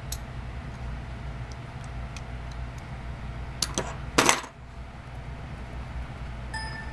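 Small metallic clicks and clinks from a Gerber EAB utility knife and its blade being handled, the loudest clink about four seconds in, over a steady low hum. A brief ringing tone sounds near the end.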